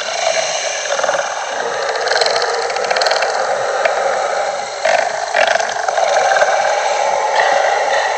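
Monster creature sound effect: a loud, continuous harsh rasping noise with almost no deep low end, changing character briefly about five seconds in and again near the end.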